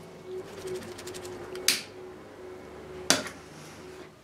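Hand tools at work on a motorcycle engine as the sump plug is refitted: a brief run of fast clicks, then two sharp knocks over a second apart, over a faint steady hum.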